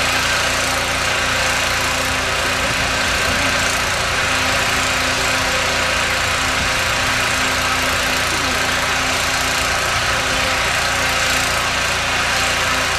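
An engine running steadily: a loud, even rush with a constant low hum.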